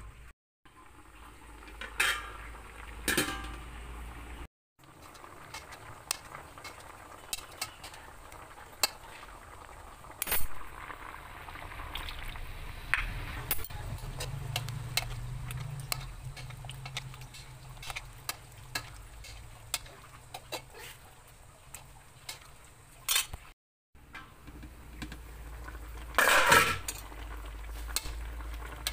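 Coconut milk simmering and bubbling in an aluminium pot over fish and greens, with scattered clinks and clatters of metal utensils and the pot lid against the pot. The loudest clatters come about 2 and 3 seconds in, around 10 seconds and near the end.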